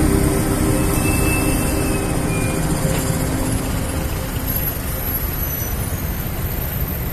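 Steady city road-traffic noise, a low rumble of passing vehicles, as background music fades out in the first second or so.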